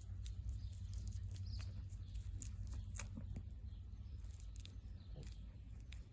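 Goat kid chewing pieces of apple, with small irregular crunching clicks over a steady low rumble.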